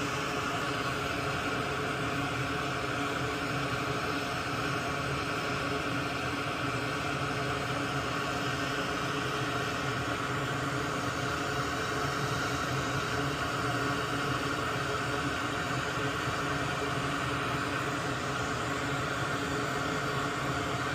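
A small electric fan or blower on a soldering bench running steadily: an even whooshing hiss with a faint hum underneath, unchanging throughout.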